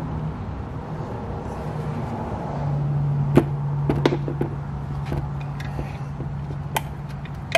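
Light clicks and taps of a screwdriver working at the water pump base plate of an outboard's lower unit, over a steady low hum that grows louder a couple of seconds in.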